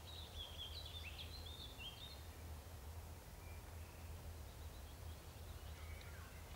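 A songbird singing quick, high chirping phrases for the first two seconds, with a few more chirps near the end, over a faint steady low hum.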